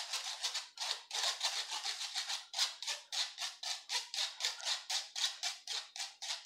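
Powdered sugar and cocoa powder being sifted by hand through a mesh sieve: a quick rhythm of short scratchy rubbing strokes, about five a second.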